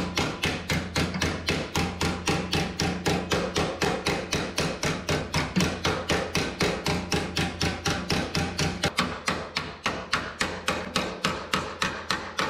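Small hammer tapping steadily on a clamped strip of 16-gauge sheet steel, about four to five light blows a second, folding it into a 90-degree bend. A steady low hum runs underneath.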